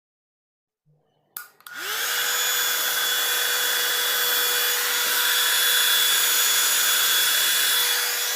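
Philips hair dryer switched on with a click about a second and a half in; its motor spins up within half a second and then runs steadily, blowing air with a steady hum under the rush.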